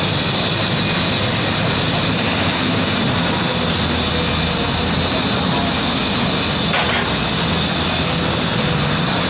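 Komatsu PC200 hydraulic excavator's diesel engine running steadily under work, with a constant high hydraulic-like whine above it and a brief sharp knock about seven seconds in.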